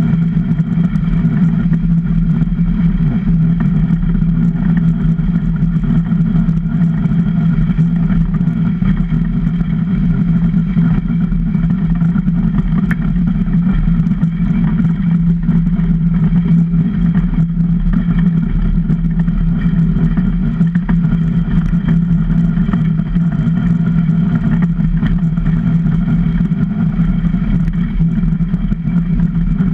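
Super DN ice boat's runners skating over hard lake ice at speed, carried through the hull to the onboard camera as a loud, steady low hum over a rough rumble.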